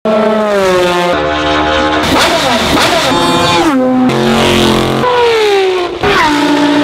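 Race car engines at high revs in quick succession, a different car every second or so with abrupt cuts between them. Several of the notes fall in pitch, one sharply just after the six-second mark.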